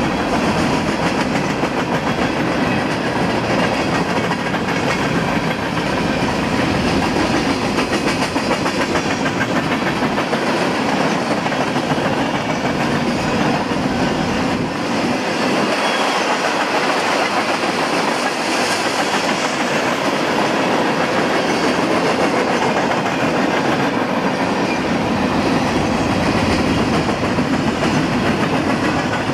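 Freight cars of a long CSX freight train rolling steadily past, steel wheels clacking over the rail joints.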